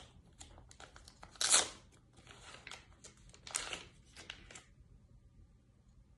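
Packaging being handled and opened by hand: irregular rustling and crinkling with a few louder tearing sounds, the loudest about a second and a half in and again around three and a half seconds. It stops shortly before the end.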